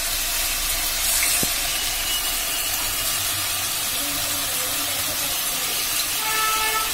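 Onion and capsicum pieces sizzling steadily in oil in a wok over a high gas flame.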